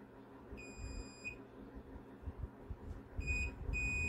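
Digital multimeter's continuity beeper sounding three times: a beep about half a second in, then a short one and a longer one near the end, each a steady high tone, meaning the probes are across a conducting path. Low rustling and bumping from handling the board and test leads sounds under the beeps.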